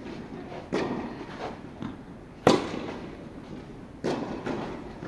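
Tennis balls struck by rackets and bouncing on the court in a rally, a sharp pop every second or so, the loudest about halfway through, each one echoing through a large indoor tennis hall.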